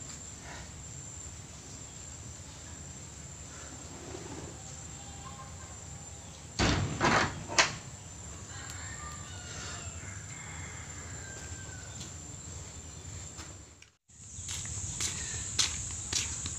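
Steady high-pitched insect drone over outdoor background noise, with a short cluster of knocks about seven seconds in. After an abrupt cut near the end the drone is louder, with footsteps on a dirt path.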